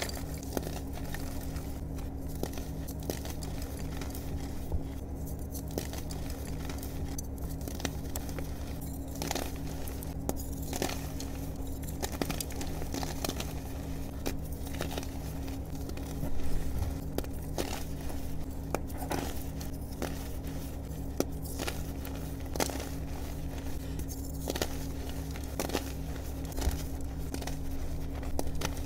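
Hands crushing and squeezing soft reformed blue-dyed gym chalk, with a string of small crisp crunches and crackles as the chalk crumbles into powder. A louder crunch comes about halfway through, over a steady low hum underneath.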